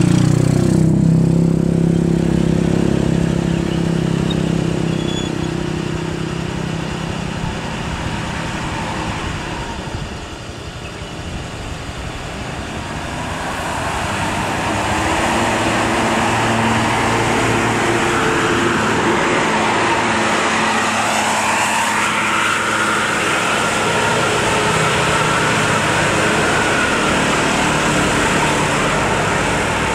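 Heavy vehicle engines on a steep climb, most likely big diesel buses. A loud engine note fades away over the first several seconds. After a brief lull, another vehicle's engine noise builds, with a higher whine in it, and stays loud to the end.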